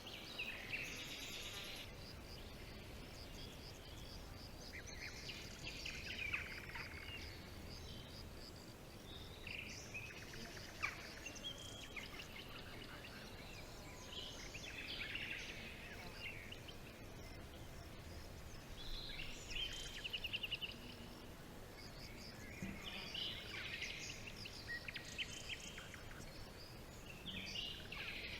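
Several birds calling and trilling in a forest, a burst of chirps every few seconds, over a faint steady background rumble.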